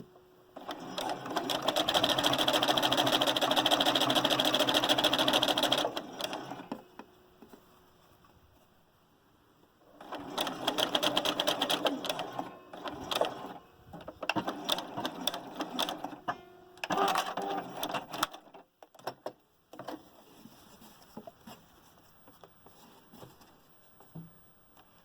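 Sewing machine stitching seams in heavy home décor fabric, in runs: one steady run of about five seconds, a pause, a shorter run, then several brief bursts of stitching before it stops.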